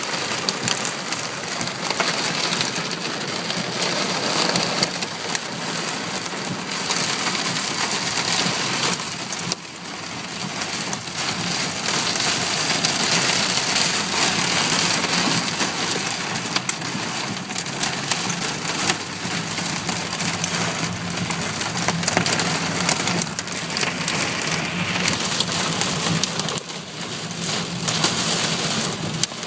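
Heavy storm rain pelting a car, a dense steady hiss peppered with many sharp clicking impacts.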